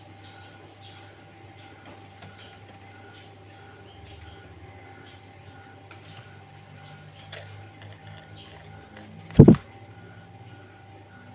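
A steady low hum with faint, evenly repeated higher ticks, broken about nine seconds in by one loud, brief, doubled low thump.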